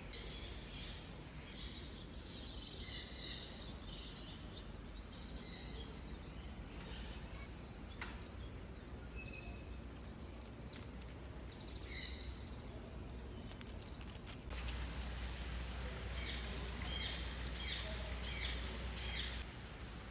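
Small birds chirping and tweeting over a steady background hum; in the last third a quick series of repeated high chirps.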